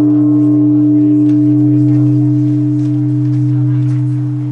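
Large Japanese temple bell ringing on after a strike. A deep steady hum and a clear lower tone hold while the higher overtones slowly fade.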